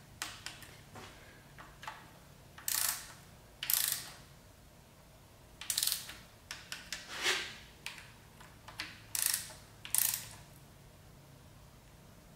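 Hand ratchet clicking in several short bursts, with pauses between them, as the bolts of a refitted automatic transmission pan are run down.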